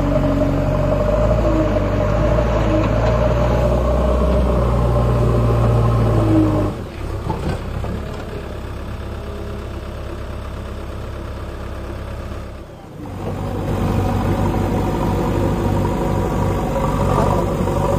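JCB 3DX backhoe loader's diesel engine running under load. Its note drops quieter about seven seconds in, dips briefly a little after halfway, then comes back up with a fast low pulsing.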